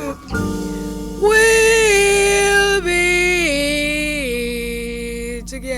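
Jazz ballad recording: after a short break at the start, a melody line plays long held notes that step down in pitch, four notes in all, over a sustained accompaniment.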